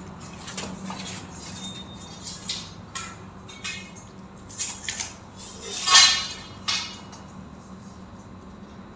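Clatter of tools and small hardware being handled during an installation: a run of sharp clicks and knocks, the loudest about six seconds in.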